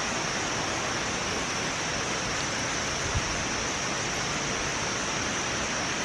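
Steady rush of a large waterfall's falling water, an even hiss-like noise with no breaks. A thin, steady high-pitched whine runs over it, and there is one soft knock about three seconds in.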